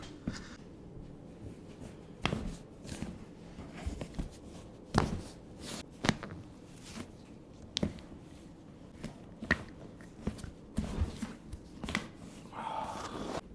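Hands-on chiropractic treatment: irregular sharp clicks and knocks over low rustling, the loudest about five seconds in.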